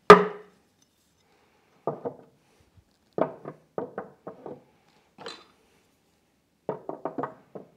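Wood chisels being set into a slotted sapele chisel holder, their handles and ferrules knocking against the wood. A sharp knock comes at the start, then several groups of quick clacks as each chisel drops into its slot.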